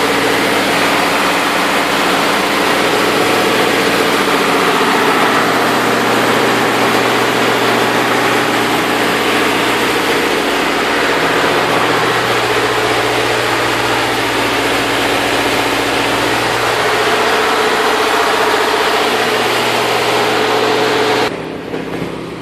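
Three-cylinder diesel generator engine running steadily at constant speed, pretty loud up close. The sound cuts off abruptly near the end.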